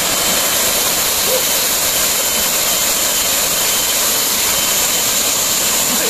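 Small waterfall pouring into a rock pool: a steady, even rushing of falling water.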